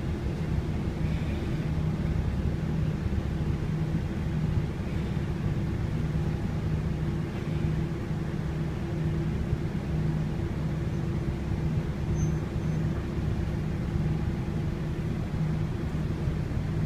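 JR Tokai KiHa 11 diesel railcar heard from inside the passenger cabin: a steady low engine hum with a pulsing drone as the car rolls slowly along a station platform.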